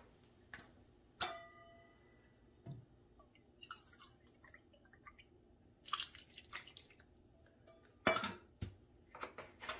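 Milk being measured and poured in a kitchen: a clink with a short metallic ring from a stainless steel measuring cup about a second in, quiet pouring and splashing of milk into the cup and then into a mixing bowl, and knocks as the cup and jug are set down near the end.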